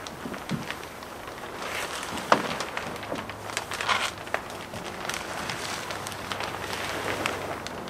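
Scattered knocks and rustling, with one sharp knock about two and a half seconds in, over a faint steady hum.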